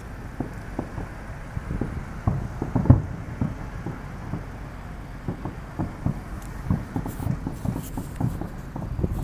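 Distant fireworks shells bursting: an irregular run of dull booms over a low rumble, the loudest about three seconds in.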